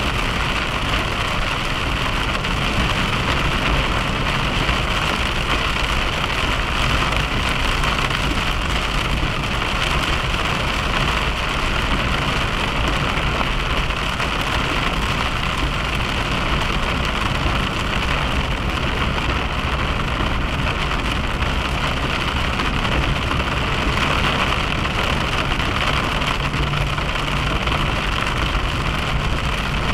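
Steady road noise of a car driving at speed: tyre and engine noise, even throughout.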